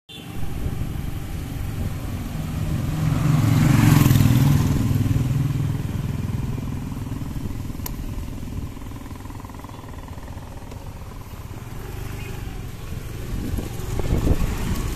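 Honda scooter's small single-cylinder engine running as it is ridden over a rough, potholed road. The sound swells louder for a couple of seconds about four seconds in.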